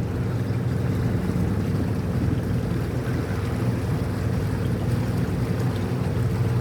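A boat's engine running steadily under way, a constant low drone with water and wind noise.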